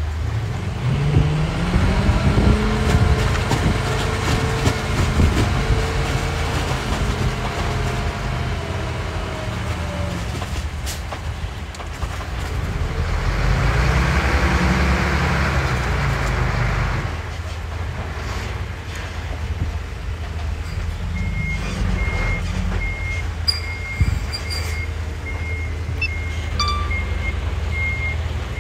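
Radio-controlled trucks' engine sounds running and revving, with the pitch rising and falling, and a rushing hiss for a few seconds in the middle. From about two-thirds of the way in, a reversing beeper sounds repeatedly as a truck backs up.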